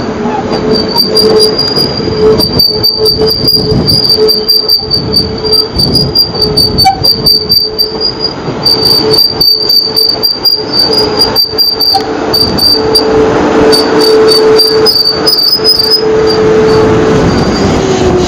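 Wheels of a South Western Railway electric multiple-unit train squealing on curved track as it moves slowly, with a steady two-pitched squeal, one low and one high, held almost throughout over the rumble of the wheels. The squeal fades out near the end.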